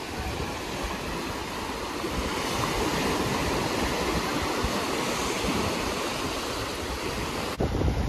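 Atlantic Ocean surf washing onto a beach: a steady rushing of breaking waves that swells a little towards the middle. Just before the end it cuts abruptly to a louder, low rumbling.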